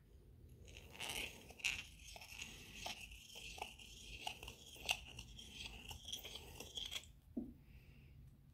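Hand deburring tool's blade scraping silver off the inner lip of a Morgan silver dollar coin ring. It makes a run of faint, short scrapes and small ticks from about one to seven seconds in.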